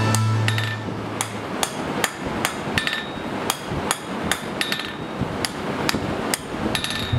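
Hand hammer striking a red-hot steel bar on an anvil, forging it in a steady rhythm of about two to three blows a second, some blows ringing off the anvil.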